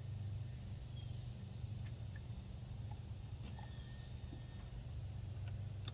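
A steady low hum, with a few faint, scattered clicks and taps from hands and tools working on the throttle body.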